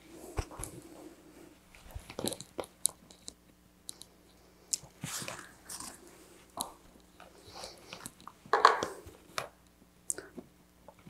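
Scattered small clicks and taps with short rustling scrapes, the loudest about three-quarters of the way through, over a faint steady hum.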